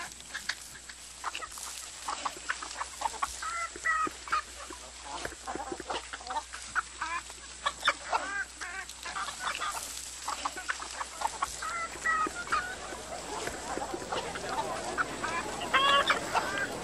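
A flock of hens clucking, with many short, overlapping calls from several birds. A louder burst of calls comes near the end.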